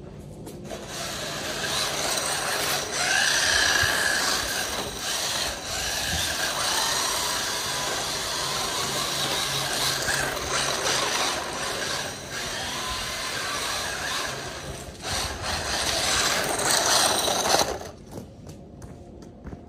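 SG1603 mini RC drift truck being driven, its small brushed electric motor and gear drive whining and rising and falling with the throttle as the tyres slide over the ground. The noise starts about a second in and cuts off near the end.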